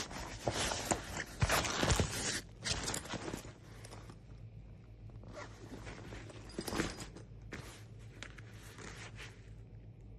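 Backpack zipper being pulled and the bag handled, with rasping strokes in the first few seconds, then sparser rustles and clicks.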